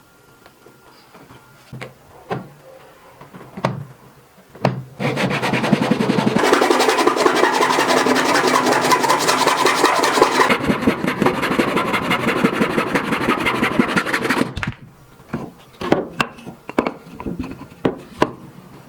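Handsaw cutting through wood in a magnetic mitre guide, fast steady strokes lasting about ten seconds. Scattered knocks and clicks before and after the cut.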